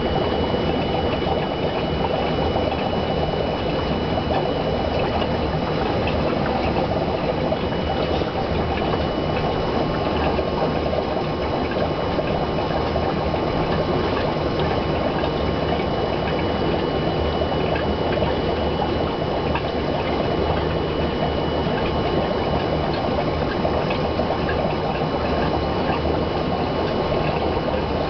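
Aquarium aeration bubbling: a steady stream of fine air bubbles rising through the water and breaking at the surface, with a thin steady tone above the bubbling.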